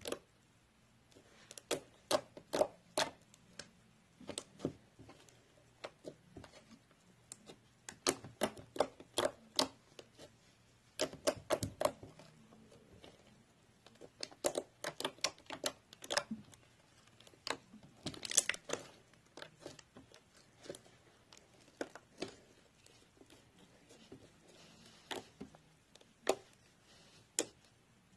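Fluffy slime being squeezed and poked by hand, giving irregular clusters of sharp, sticky clicks and pops with short quiet pauses between them.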